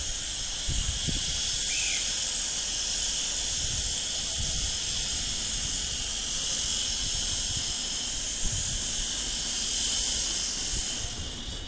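Steady high whooshing hiss over a low rumble from an electric double-deck push-pull train, with a Traxx locomotive pushing, standing at the platform about to depart. The hiss drops away at the very end.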